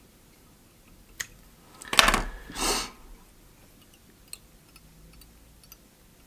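Two short, loud crackling rustles close together about two seconds in, with a sharp click just before them and a faint tick later: fly-tying materials being handled at the vise.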